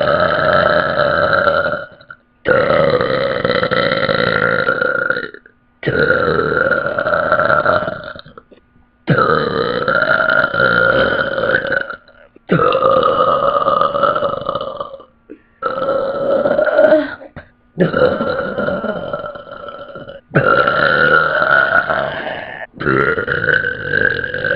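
A woman's long, loud burps, one after another: about nine drawn-out belches of two to three seconds each, with short breaks between them.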